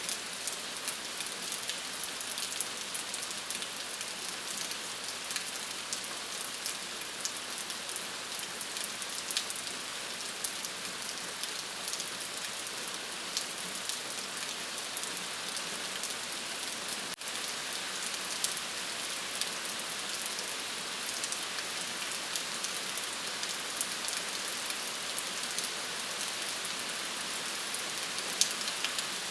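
Steady rain falling on a surface, a constant hiss with many small sharp drop ticks, and a split-second dip in level about seventeen seconds in.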